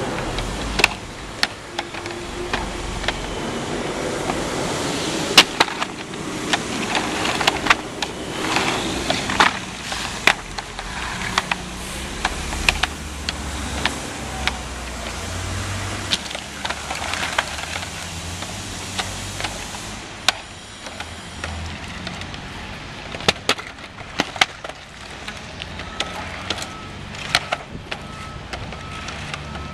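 Hard plastic EventDeck Ultra turf-protection panels being set down on asphalt and knocked into place against each other: irregular sharp clacks and knocks, some single and some in quick clusters, over a low rumble.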